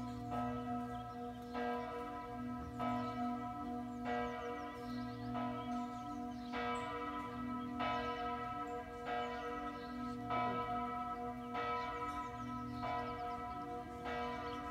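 Church tower bells ringing steadily, a fresh stroke about every second and a quarter, the tones ringing on between strokes.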